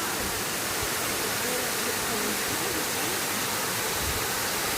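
Cascading waterfall rushing steadily, an even wash of falling water.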